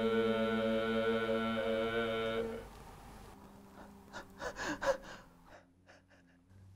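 A steady, chant-like droning hum with many overtones holds, then stops about two and a half seconds in. A few short gasps follow in the quiet.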